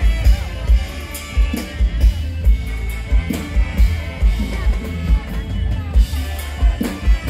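A live Thai luk thung and mor lam band playing loudly through concert loudspeakers: a drum kit's kick drum keeps a steady beat about twice a second, with keyboard and horns over it.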